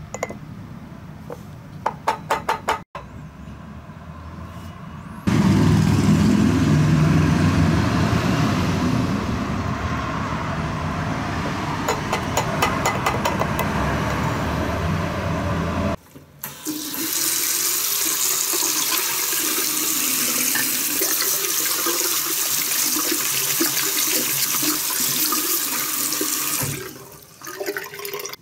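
Tap water running into a sink for about ten seconds, starting about halfway through and stopping shortly before the end. Before it, a louder low steady noise with a short run of quick clicks.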